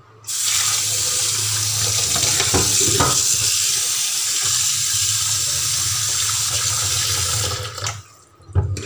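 Kitchen tap running into a steel pot of fish pieces in a stainless-steel sink as the fish is rinsed, a steady splashing hiss. The water cuts off about eight seconds in, followed by a short knock.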